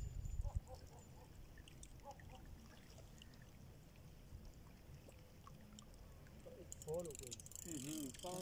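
Quiet outdoor background with a brief low rumble at the start, then faint, indistinct voices that grow clearer near the end.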